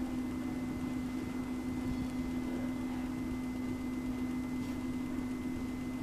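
Steady low-pitched hum over a faint even hiss.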